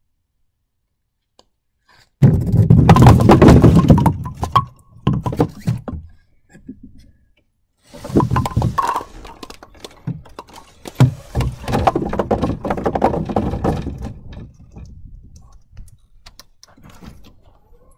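Bowling ball striking a rack of pins hung on paracord on a plywood lane, with a loud burst of clattering and knocking about two seconds in. A second, longer stretch of knocking and clattering starts about eight seconds in.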